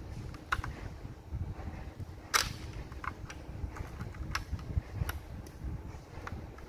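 Plastic Lego bricks clicking and knocking as fingers move and press pieces on a hand-held brick-built model, about half a dozen sharp clicks with one louder snap a little after two seconds in, over low rubbing handling noise.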